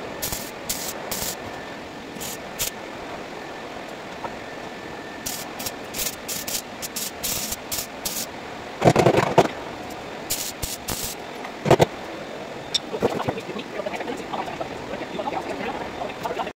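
Welding arc on car body sheet metal, crackling in short bursts as welds are laid one after another, with a couple of louder knocks partway through.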